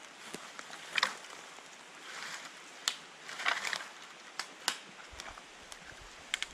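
Dry dead branches and twigs cracking, snapping and crunching as long sticks are picked up, dragged and handled, a handful of sharp cracks among rustling crunches.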